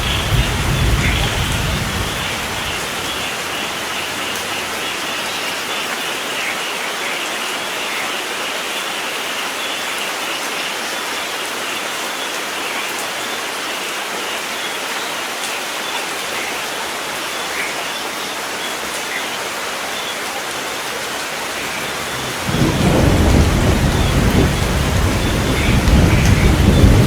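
Steady rain falling with a patter of drops. A rumble of thunder dies away in the first two seconds, and a new peal of thunder begins about 22 seconds in and grows louder toward the end.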